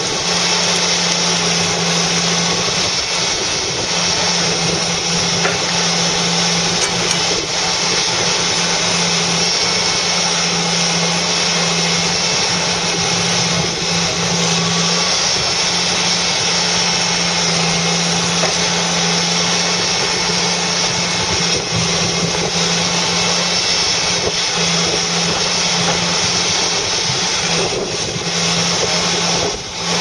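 Fiberpac 370B brash baler at work on a forestry machine: the diesel engine and hydraulics run steadily as the crane feeds brash into the baler. A low hum drops out and comes back several times.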